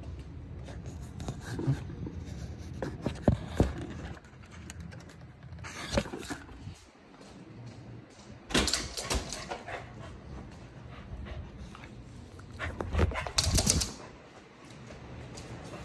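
Keeshond puppy playing and scuffling close by, with irregular knocks and several louder bursts of noise.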